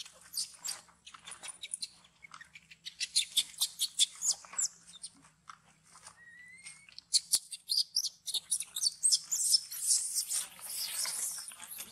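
Rapid dry crackling and crunching from macaques feeding and crawling on dry leaf litter, many quick clicks close together. A short rising squeak about six seconds in.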